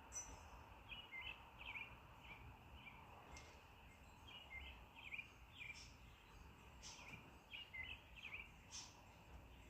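Small birds chirping faintly: short, repeated chirps, roughly one to three a second, with a few sharper high notes, over a low background rumble.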